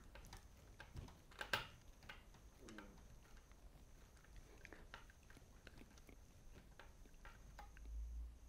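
Near silence with faint ticks and small scrapes of a Phillips screwdriver turning a screw by hand into a speargun's line guide. A slightly louder click comes about a second and a half in.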